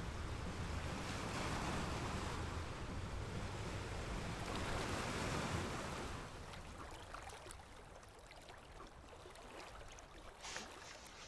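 Sea waves washing: a hiss of surf that swells and then fades away about six seconds in, followed by a few faint small knocks near the end.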